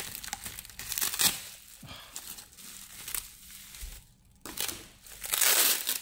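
Plastic bubble wrap crinkling and rustling as it is handled and pulled off a wrapped box, with a short pause about four seconds in and a louder stretch of crinkling near the end.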